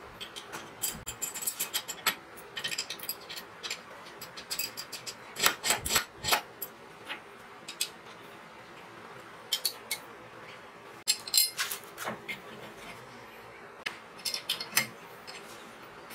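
Steel parts clinking and clicking by hand in irregular bunches as a flat steel bracket, bolts and washers are fitted together, the loudest clicks around five to six seconds in and again near eleven seconds.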